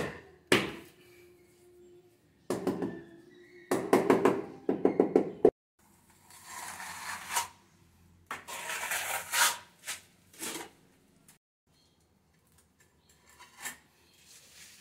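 Ceramic wall tiles being set. There are bursts of rapid knocks and clinks on the tiles, two stretches of scraping around the middle, and a few single knocks toward the end.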